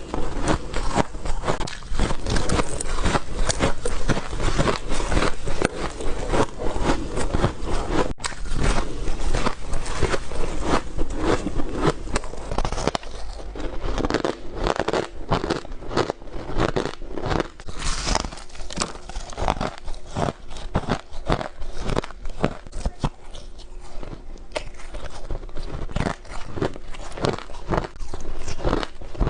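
Ice being bitten and crunched close to the microphone: a dense run of sharp crunches and cracks, thinning out somewhat in the second half.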